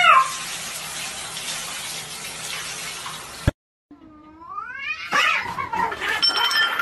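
A ginger cat yowls briefly under a shower head running into its bucket of water. After a cut, another cat gives one long wavering yowl, then there is a noisy scuffle as the cats go for each other.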